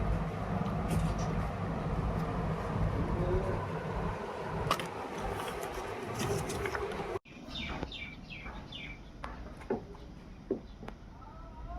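Steady rumble of factory machinery with scattered clicks, cut off abruptly about seven seconds in. After it comes a quieter yard with a few quick bird chirps and some sharp knocks.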